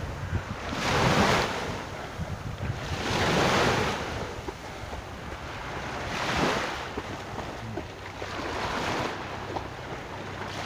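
Small waves washing onto a sandy shore, the surf swelling and fading every two to three seconds, with wind on the microphone.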